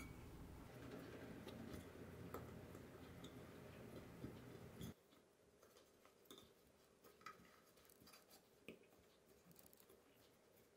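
Near silence with faint scattered taps and clicks of fingers pressing tart dough into a metal muffin tin. A low room hiss drops away about five seconds in.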